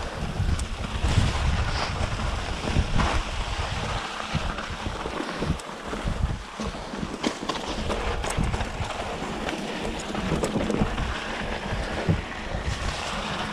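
Mountain bike being ridden along a dirt trail: wind buffeting the microphone over a steady rumble of tyres, with scattered sharp clicks and knocks throughout.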